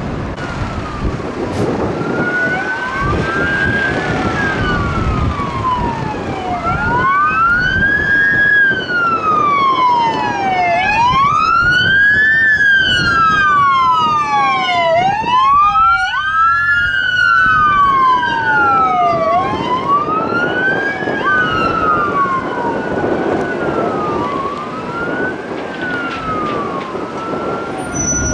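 Fire chief's SUV siren wailing in slow rising and falling sweeps as it drives past, loudest about a third of the way in to just past halfway. Engine and tyre noise runs underneath.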